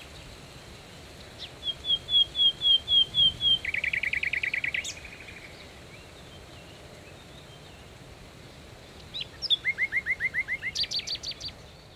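A songbird singing two phrases. The first is a run of about eight quick whistled notes that breaks into a fast trill; after a pause of a few seconds comes a second run of quick notes ending in higher, sharper ones.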